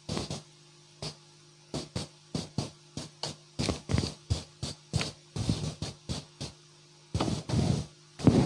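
Marker pen writing on flip-chart paper: a string of short scratchy strokes, a few a second, with a couple of longer strokes near the end.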